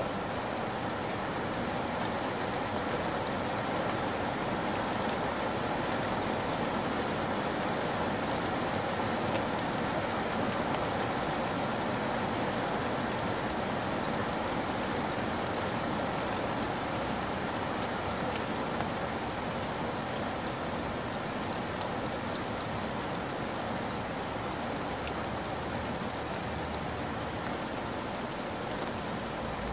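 Steady rain falling, with scattered individual drops ticking through the constant hiss.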